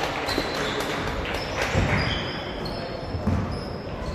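Basketball game on a hardwood gym court: a ball bouncing in a few low thuds and sneakers giving short, high squeaks, in an echoing hall.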